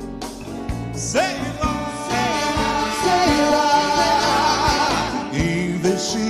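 A live big band with brass, drum kit and congas plays behind a lead vocal. About a second in, the voice swoops up and holds a long note with vibrato over a steady drum beat.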